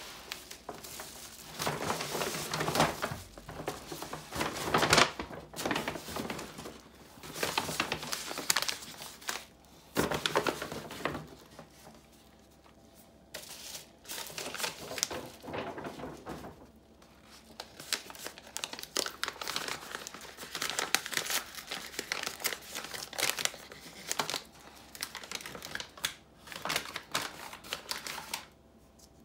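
Bubble-wrap sleeves and paper packaging crinkling as they are handled and unwrapped, in irregular bursts with a few short pauses.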